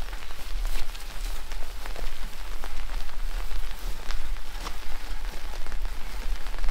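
Heavy rain falling steadily, with many separate drops striking close by, over a low rumble.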